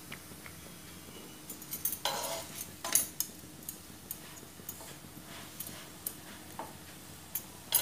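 Metal knife blade scraping and clicking against a non-stick frying pan as a paratha is pressed and turned on it, in irregular strokes starting about a second and a half in, the loudest near the end.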